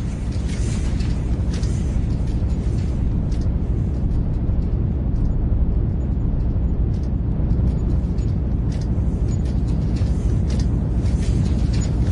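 Steady, loud low rumble of heavy industrial machinery, with short sharp clicks and crackles scattered irregularly through it.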